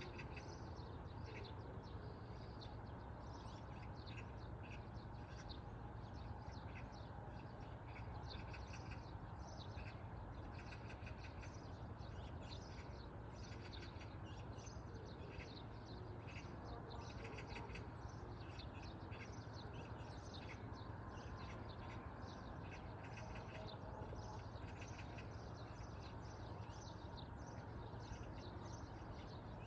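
Many small birds chirping in quick, short calls throughout, over a steady low rumble.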